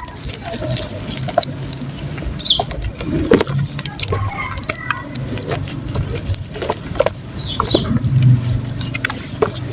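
Chunks of soft dry mud crumbling and breaking in water, a dense run of irregular crackles and wet clicks.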